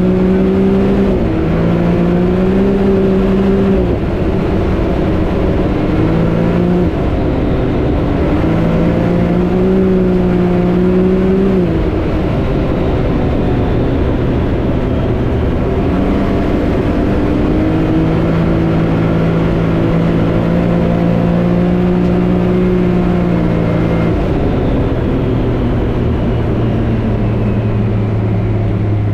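Can-Am Maverick X3 Turbo RR's turbocharged three-cylinder engine running under way, loud and steady. Its pitch holds for a few seconds at a time and then steps up or down as the throttle changes, with a drop in revs about three quarters of the way through.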